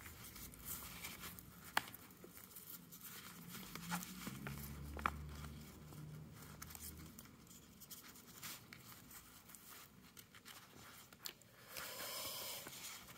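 Faint rustling and crinkling of a ribbon and card being handled as a bow is tied, with a few small clicks.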